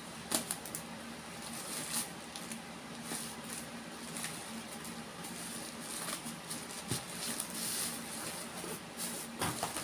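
Plastic wrapping and packing tape crinkling and rustling as a wrapped package is cut and pulled open with scissors, with sharp snips and clicks scattered through.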